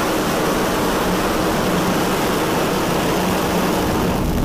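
Falcon 9 first stage's nine Merlin 1D engines firing at full thrust just after liftoff: a loud, steady rush of rocket exhaust noise as the rocket climbs away from the launch tower.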